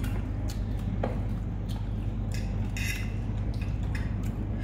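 Cutlery clinking and scraping on plates while eating, scattered light clicks every half second or so, over a steady low hum of room noise.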